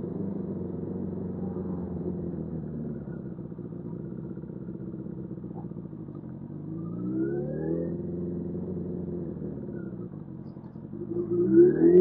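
Suzuki GSF600 Bandit's inline-four engine running steadily on the move. It rises in pitch as it accelerates about seven seconds in, eases off, then climbs steeply and gets much louder near the end. Heard through an AirPods microphone, which leaves it dull with no high end.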